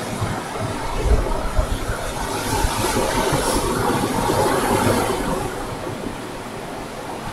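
Ocean surf breaking and washing onto a sandy beach, a steady rush that swells about halfway through and eases near the end, with wind rumbling on the microphone.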